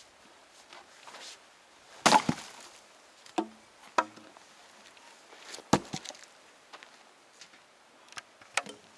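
Firewood being split with an axe: a series of sharp chops with the crack of splitting wood, the loudest about two seconds in and again near six seconds, with lighter knocks in between.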